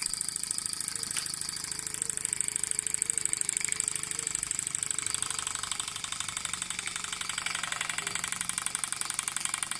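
Mamod Centurion model steam traction engine with a double-acting piston-valve cylinder running fast on live steam, giving rapid, even exhaust chuffs over a steady hiss. It is belted to a small generator and working against its load.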